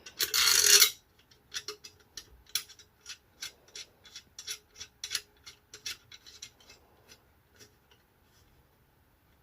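A short scrape in the first second, then a run of small sharp clicks, two or three a second, some with a faint ring, thinning out and fading near the end. These come from the parts of a vintage candy dispenser being fitted and turned.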